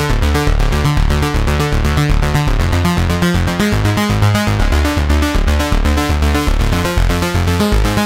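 u-he Diva software synthesizer playing presets: a fast repeating pattern of synth notes over a bass line, with the bass shifting pitch a few seconds in.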